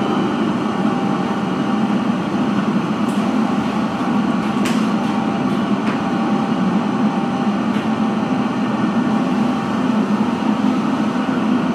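Steady machine hum with a rushing noise, unchanging throughout, with a few faint clicks about three to eight seconds in.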